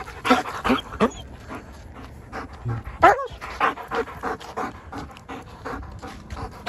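German Shepherd panting quickly, at about four breaths a second, with a brief whine about three seconds in.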